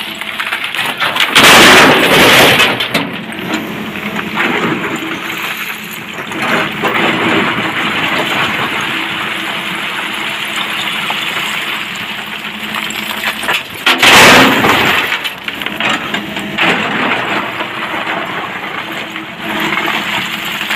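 SANY hydraulic excavator working blasted quarry rock: its diesel engine runs steadily under load while rock crashes and clatters loudly in two bursts, about two seconds in and again about fourteen seconds in, with smaller clatters of rock between.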